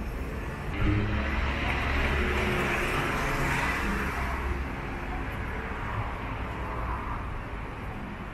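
Street traffic: a motor vehicle drives past, its engine and tyre noise swelling about a second in and fading away over the next few seconds, over a steady background hum of the road.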